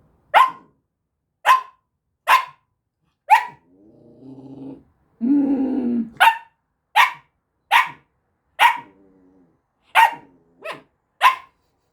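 Samoyed puppy barking repeatedly, about eleven sharp single barks, with a low grumbling growl in a pause about halfway through: demanding attention.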